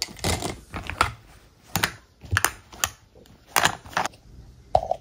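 Makeup brushes and small plastic cosmetic items clicking and clattering as they are handled and dropped into a fabric makeup pouch: a run of irregular clicks and rattles.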